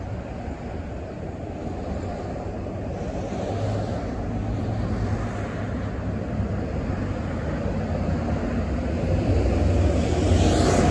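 Road traffic with a Chevrolet Suburban SUV pulling slowly through an intersection. Its engine rumble and tyre noise grow gradually louder as it draws close, loudest near the end.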